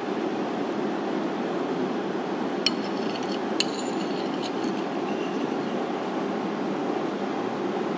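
A metal spoon clinks twice against a ceramic plate, about a second apart, over a steady low rushing background noise.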